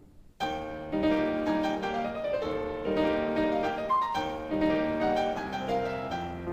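Solo piano playing full, sustained chords, coming in suddenly and loud about half a second in.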